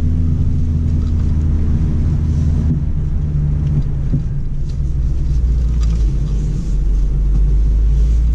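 Interior sound of a BMW X4 M40i's turbocharged inline-six crawling along a dirt forest trail: a steady low engine and road rumble, with a few faint clicks and knocks from the tyres and suspension over the ground.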